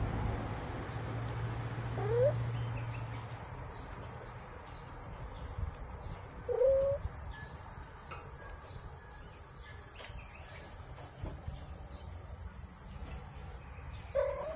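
A cat gives three short, rising mews, about two seconds in, about six and a half seconds in and near the end. Under them runs a steady high insect drone.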